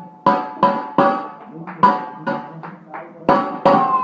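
A baby banging on a hard object in an uneven rhythm, about ten sharp strikes, each with a short ringing tone.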